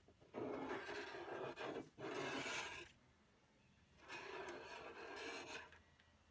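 A wide hand scraper pushed along a flat metal barbecue panel, rasping off wrinkled, lifted paint in three strokes, the third after a short pause.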